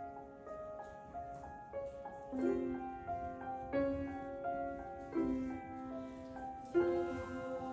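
Solo piano playing a slow introduction to a song: sustained chords and melody notes struck about every one to one and a half seconds, each ringing and fading.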